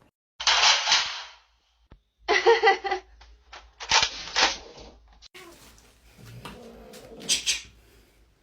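A cat hissing in short, loud bursts: three in the first five seconds and a shorter one near the end.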